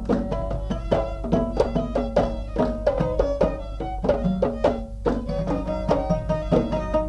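Instrumental passage of a traditional Gulf song: oud and violin playing the melody over quick strokes of small mirwas hand drums.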